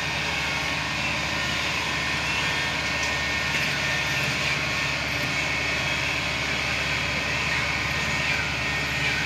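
Kubota DC-85GM combine harvester's diesel engine running steadily, a continuous even drone, while the machine is driven up loading ramps onto a truck.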